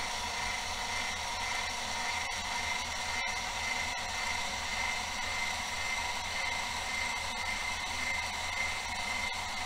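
Sky-Watcher AZ GTI mount's motors whirring steadily with a high whine as the mount slews to intercept a satellite under tracking software control.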